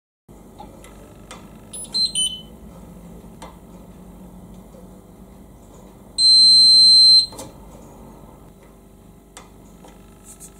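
Indesit DIE 2B19 dishwasher control panel beeping: a few quick short high beeps about two seconds in, then one loud steady high beep lasting about a second when the P button is held down, the signal that the panel has entered the salt-quantity setting. Light button clicks come between them.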